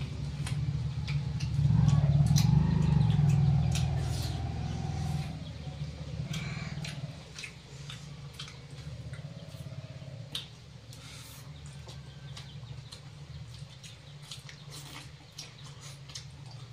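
A cat's long drawn-out meow from about two to five seconds in, over a low rumbling hum that is loudest at the same time and then fades, with small clicks and taps scattered throughout.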